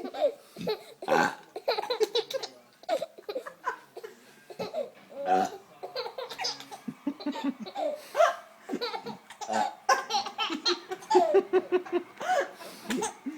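A baby laughing hard in repeated fits of belly laughs, cracking up at its mother's burps.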